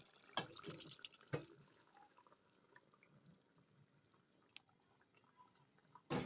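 Chopped beetroot going into a pan of wet tomato-onion masala: a few wet plops and drips in the first second and a half, then faint, with a sharp knock near the end.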